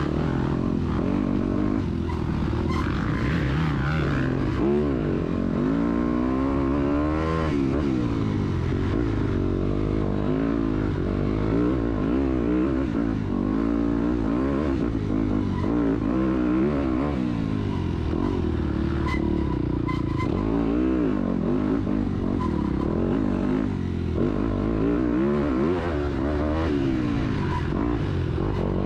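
A 250 cc dirt bike engine under racing load, its pitch climbing and dropping again and again as the throttle is opened and closed.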